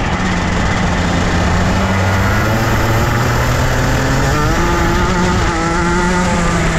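Two-stroke Rotax Junior kart engine running on track at speed. Its note holds fairly steady, then wavers and shifts in pitch about two-thirds of the way through before settling again.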